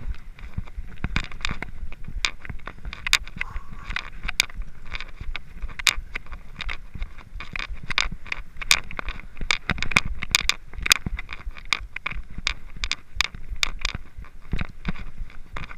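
Mountain bike rolling over rough ground: irregular rattling, clicking and crunching of the bike and tyres over a steady low rumble.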